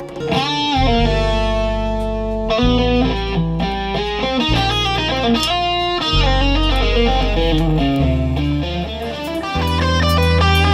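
Jazz band music, with an electric bass playing long, low notes beneath a higher melody line.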